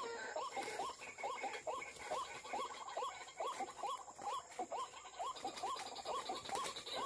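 White-breasted waterhen calls: a short rising hooked call repeated steadily, about three a second.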